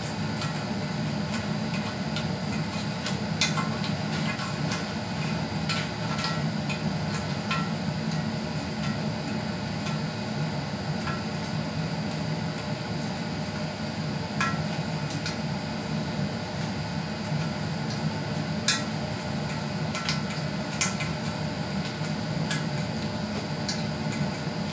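Flat razor blade scraping at the glass face of a 25AP22 colour picture tube, prying hardened PVA cataract material off in flakes. It makes irregular sharp ticks and clicks over a steady background hum.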